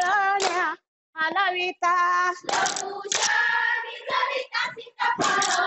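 A group of women singing a Goan fugdi song, their voices wavering in pitch. Loud breathy rushes come in twice, about two and a half seconds in and again near the end.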